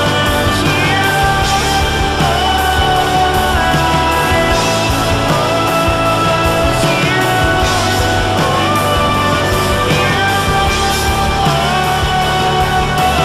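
Rock music with a steady beat and gliding melody notes.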